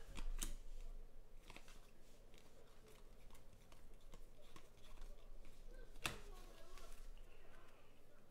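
Faint rustling and soft clicks of a stack of Panini Prizm football cards being flipped through by hand, with one sharper click about six seconds in.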